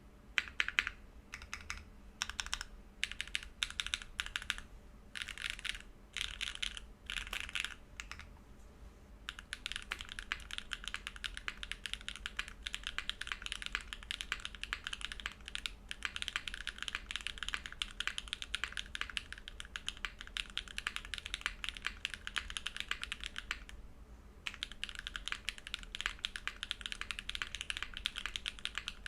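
Typing on a Vertex Arc60 mechanical keyboard with an aluminium plate, no case foam, JWK Catmint switches and GMK keycaps. Short bursts of keystrokes with gaps come first, then continuous fast typing from about a third of the way in, with one brief pause near the end.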